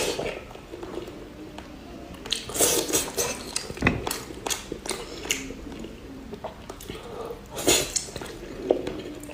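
Close-miked eating sounds of a person chewing and biting pork belly: irregular bursts of wet chewing with a few sharp clicks.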